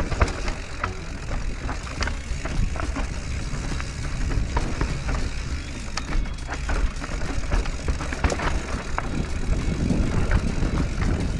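Riding noise of a Radon Swoop enduro mountain bike on a fast descent of a dirt forest singletrail: a low wind rumble on the camera microphone and tyres on dirt, with frequent sharp clicks and rattles from the bike over roots and stones. The rumble grows a little louder near the end.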